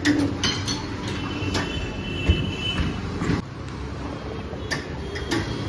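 Metal clanks and knocks from car tyres being changed, with a brief high squeal and a steady low rumble underneath.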